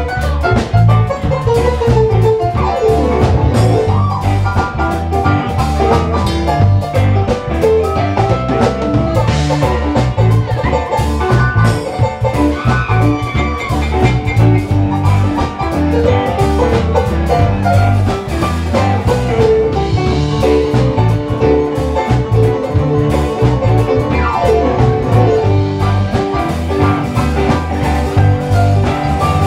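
Live funk-jazz band playing an instrumental jam passage: electric guitars, keyboard and drum kit over a steady beat, amplified in a small club.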